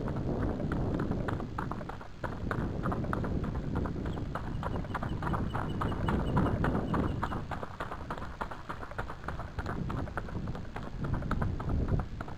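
Hooves of a gaited horse striking a dirt track in a quick, even run of hoofbeats, over a low rumble.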